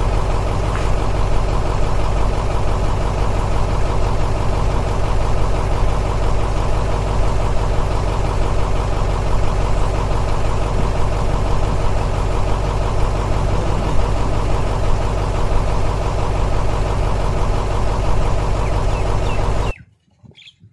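Vehicle engine running steadily at an even speed with a rapid firing beat, then cutting off suddenly near the end.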